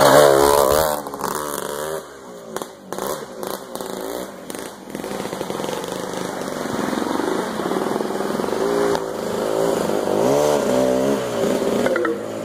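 Off-road motorcycle engines revving up and down, loud at first and again from about eight seconds in, with a quieter stretch and a few knocks in between.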